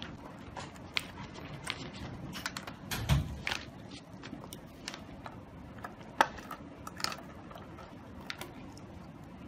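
Handling noise of a plastic syringe, tubing and plastic wrapping in gloved hands: irregular small clicks and rustles, with a dull bump about three seconds in and a sharp click a little after six seconds.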